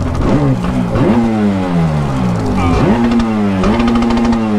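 Yamaha SuperJet 701 two-stroke twin engine revved in about four sharp blips, each rev rising quickly and dying away slowly. It is being blipped to blow water out after coming up out of the lake.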